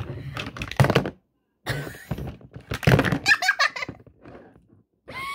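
Hard plastic pieces of a Barbie baby doctor playset clacking and thunking as they are handled and set down: a quick run of knocks in the first second, then more around two to three seconds in.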